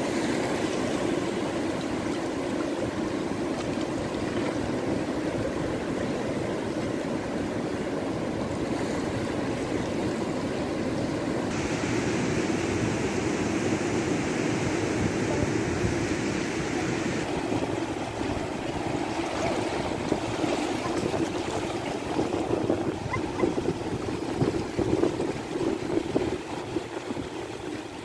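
Sea surf and seawater washing over a rocky shore and tide pools: a steady rushing noise that turns brighter and hissier for several seconds about twelve seconds in.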